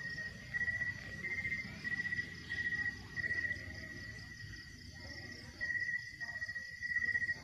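Insects chirping: a steady high trill with louder pulsed chirps about every half second, broken by a pause of about two seconds midway.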